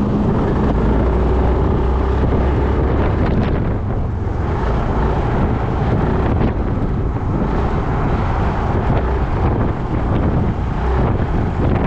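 Wind buffeting the microphone on a moving Yamaha Majesty 400 scooter, with its single-cylinder engine running steadily underneath.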